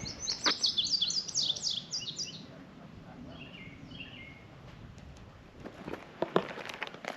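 A songbird singing a fast run of short, high, down-slurred notes, then a softer, lower phrase about three seconds later. A few footsteps on the trail near the end.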